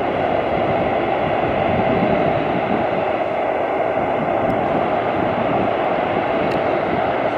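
Boeing 747-8 freighter's four GEnx turbofan engines running steadily as the jet taxis past, a continuous engine rush with a low rumble underneath.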